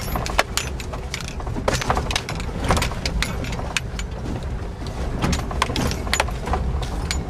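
Car moving over a rough, barely-there driveway, heard inside the cabin: a steady low rumble with frequent jangling, clicking rattles as the bumps jostle it.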